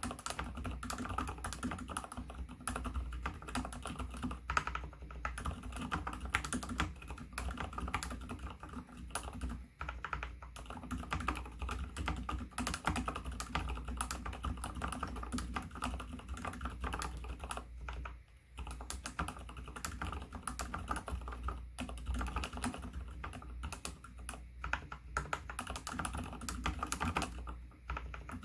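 Continuous fast typing on an mStone Groove T SF mechanical keyboard with spray-lubricated Gateron Silent Brown switches: muted, damped key presses with fingernails clicking on the keycaps. The typing briefly stops about two-thirds of the way through.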